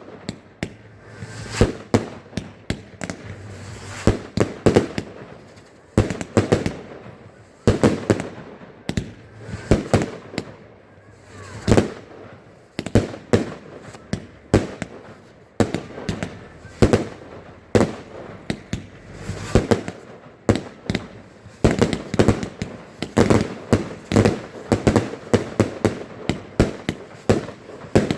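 Fireworks going off in quick succession, many sharp bangs and crackles, often several a second.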